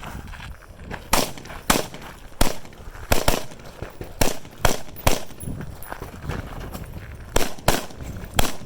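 AR-style rifle firing a string of about ten shots at an uneven pace, in quick pairs and singles with short pauses between.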